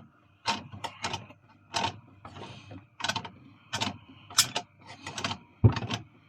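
Boat's wastewater pump running with a faint steady whine and irregular clacking knocks, after being freed from sticking, with a heavier thump near the end.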